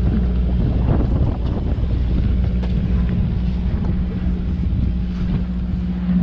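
A fishing boat's engine droning steadily, with wind buffeting the microphone.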